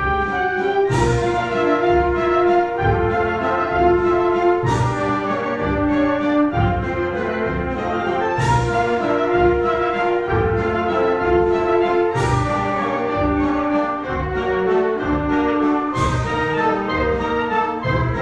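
Wind band playing a waltz: brass and saxophones hold the melody and chords over a pulsing bass beat. A cymbal crash rings out five times, about four seconds apart.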